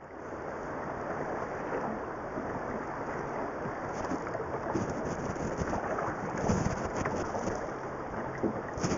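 Wind buffeting an outdoor microphone over a steady rush of river water, with low gusty thumps a little past halfway and again near the end.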